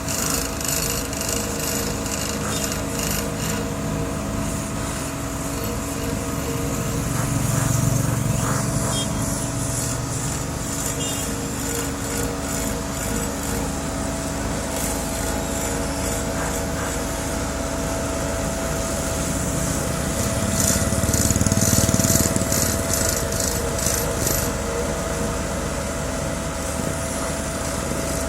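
Asphalt paving machinery at work: diesel engines running steadily under a dense metallic rattle, the engine sound swelling louder twice, about seven and about twenty-one seconds in.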